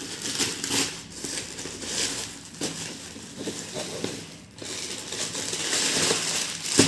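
Tissue paper and a thin plastic bag rustling and crinkling as a plastic-wrapped sandal is lifted out of a shoebox. There is a short knock near the end.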